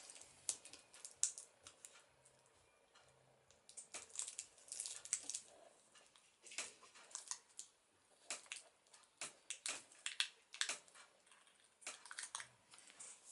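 Irregular light clicks, taps and rustles from hands working on a laptop's screen assembly: the LCD panel and its cable connector being fitted.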